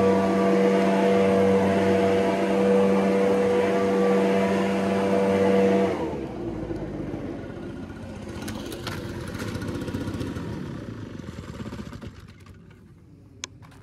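Two-stroke ECHO backpack leaf blower running steadily at full throttle, its engine note dropping away abruptly about six seconds in. Quieter, irregular handling noise follows as the blower is set down, with a single sharp click near the end.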